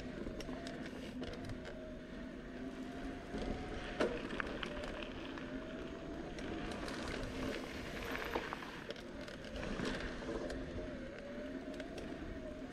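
Bicycle rolling along a sandy dirt trail: a steady tyre hum that wavers slightly with speed, wind rumble on the microphone, and scattered clicks and rattles from the bike over bumps, the sharpest about four seconds in.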